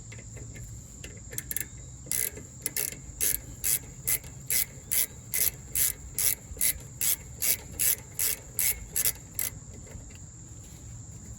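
A 14 mm ratchet clicking in short bursts, about two to three a second, as the rear brake caliper's loosened slider pin bolt is backed out.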